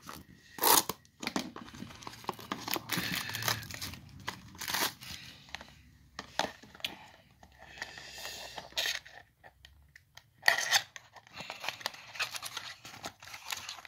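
Plastic shrink-wrap on a small cardboard trading-card box being slit with a knife and torn off, crinkling and tearing in irregular spurts with a few sharp crackles, the loudest near the start and about ten and a half seconds in. Near the end the box's cardboard flap is pulled open.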